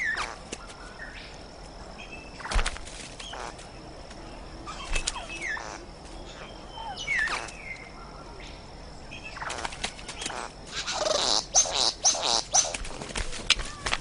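Male satin bowerbird calling in courtship display: a few short downward-sliding whistles with scattered clicks, then a long stretch of harsh, rapid buzzing and whirring calls in the last third, the loudest part.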